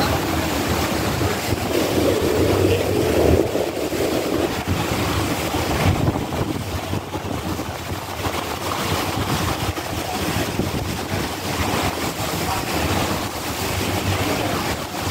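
Wind buffeting the microphone on the open deck of a sightseeing boat under way, over a steady rush of water and the low drone of the boat's engine.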